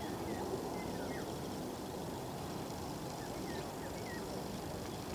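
Steady distant rumble of a Boeing 787-9 airliner's jet engines as it lands, with a few faint, short bird chirps scattered over it.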